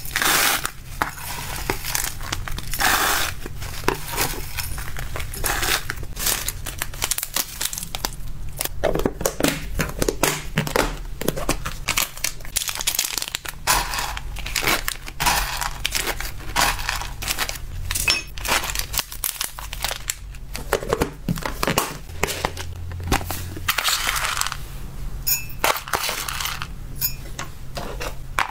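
Dry hamster food, a dried-insect and flower mix and then small kibble pellets, being scooped with a plastic spoon and poured into clear plastic and glass cups on a kitchen scale: a continuous rattle and patter of small pieces with clicks of spoon against plastic. Plastic packaging crinkles now and then.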